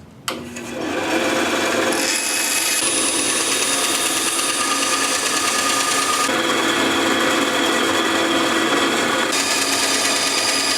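Small handheld power tool running steadily and cutting into wood, its motor whine shifting to a new pitch a few times.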